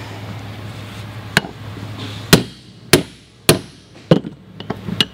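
Hammer striking a six-point staking tool set on the new bearing in a Sanden A/C compressor clutch pulley, staking the bearing into the pulley: about six sharp blows, roughly half a second to a second apart, the first lighter.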